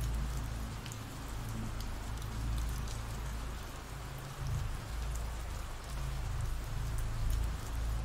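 Ambient rain sound effect: steady rain falling on a surface, with scattered drop ticks and a steady low rumble underneath.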